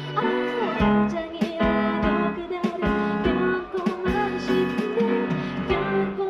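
A live band playing an instrumental passage of a pop song, with guitar to the fore over bass notes and regular drum hits.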